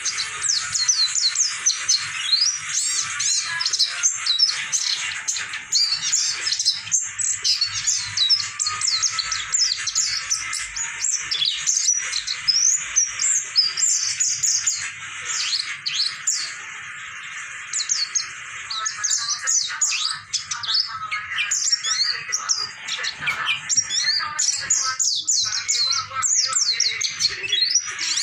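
Small songbird giving a continuous stream of rapid, high twittering chirps and short pitch glides, the 'kiriwik' song played as masteran, a recording for teaching caged songbirds to sing. A steady hiss runs beneath it.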